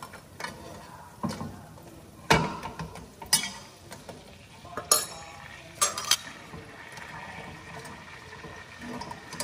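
Metal utensils stirring food in a stainless steel pot, with a series of sharp metallic clinks against the pot, the loudest a few seconds apart.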